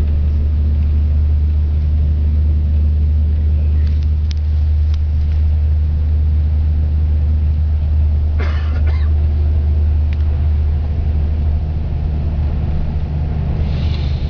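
Steady low rumble of a coach bus's engine and road noise heard from inside the passenger cabin while it drives along, with a brief short noise about eight seconds in.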